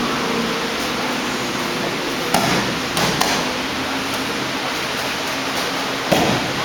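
Four short thumps of aikido practitioners hitting the practice mats as they are thrown, about two and a half seconds in, twice around three seconds, and once loudest near the end, over a steady hiss.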